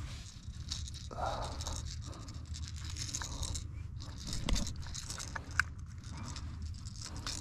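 A hook and soft-plastic lure being worked out of a striped bass's mouth by hand on wet rock. Irregular small scrapes, clicks and crunches.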